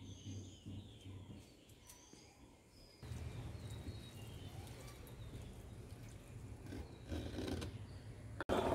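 Small birds chirping in the background. After about three seconds a soft steady wash of sound comes in as thick white batter is poured from a clay bowl into a clay pot, with a short loud clatter at the very end.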